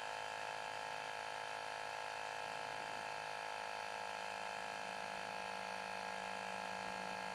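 Microstart 12-volt DC tire inflator compressor running steadily, a continuous buzzing hum.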